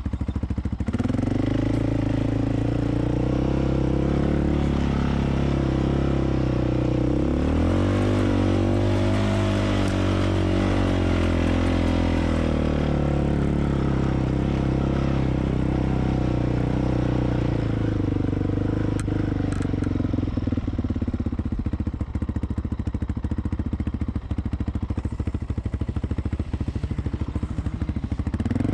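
Quad ATV engine running as it rides through soft sand, revving higher for a few seconds about eight seconds in, then running steadier and lower with light clatter.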